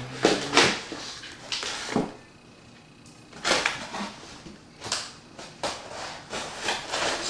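A heavily taped cardboard box being worked open by hand, its packing tape and flaps tearing and scraping in a series of short rough noises, with a pause of about a second and a half about two seconds in.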